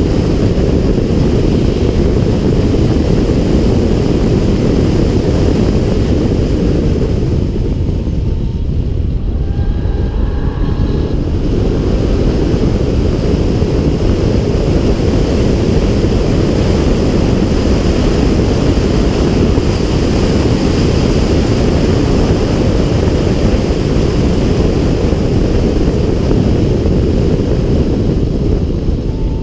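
Wind buffeting a camera mounted on the hood of a BMW X6 M driven at track speed: a loud, steady rush of air that eases briefly about eight seconds in.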